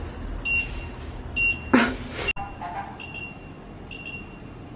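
Electronic in-room safe beeping: a short high beep repeating a little under once a second from a safe that has been broken. About two seconds in, a brief loud hiss cuts off suddenly.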